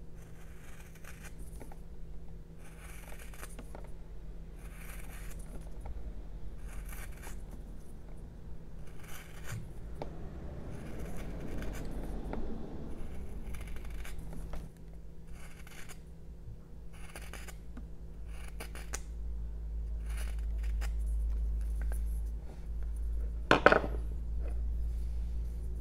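A 6 mm (#6 sweep) carving gouge paring chips from a jelutong block, a short scraping slice about once a second. Near the end there is a single sharp knock as the gouge is put down on the wooden bench.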